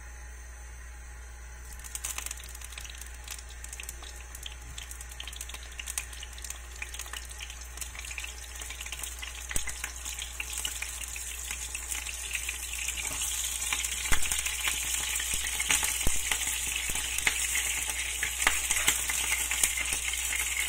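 Eggplant pieces frying in hot oil in a frying pan. Sizzling and crackling start about two seconds in as the first pieces go in, and grow louder and denser as more pieces are added.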